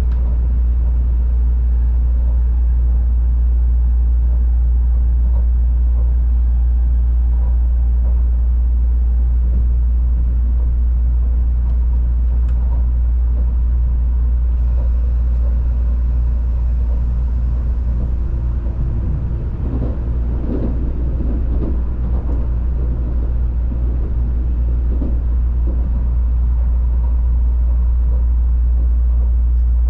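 Interior of an N700-series Tokaido Shinkansen car in motion: the steady deep rumble of the running gear and rolling noise. A stretch of short knocks and rattles comes from about two-thirds of the way in.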